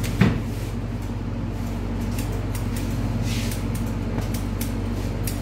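Electric hair clipper buzzing steadily during a child's haircut, with scattered light clicks and a single knock just after the start.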